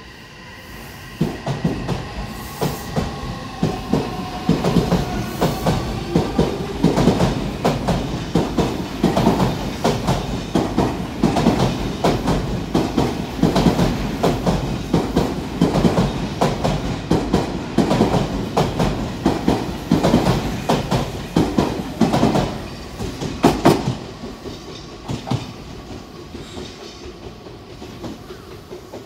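Odakyu 3000 series electric train pulling out of a station and picking up speed past the platform. Its traction motors whine over the first few seconds, then the wheels clatter over the rail joints in a long run of rhythmic knocks, which fade out as the last cars go by.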